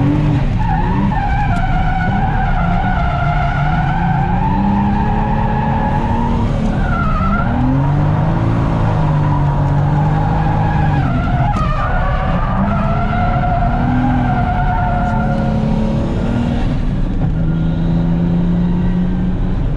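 Heard from inside the cabin, the turbocharged straight-six of a Toyota JZX100 Mark II drift car has its revs rising and falling through the corners while the rear tyres squeal in a wavering, unbroken howl as the car slides.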